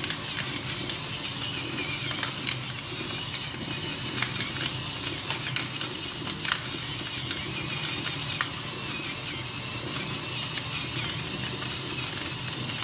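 Pepper mill being twisted to grind black pepper: a steady gritty crunching with many small ratcheting clicks, without pause.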